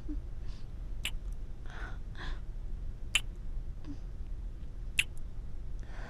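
Close-miked imitated cat purring, a steady low rumble, with three sharp kiss smacks about two seconds apart and soft breaths between them.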